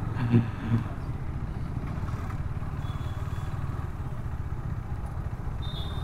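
KTM RC 390's single-cylinder engine running at low speed in slow traffic, a steady low rumble.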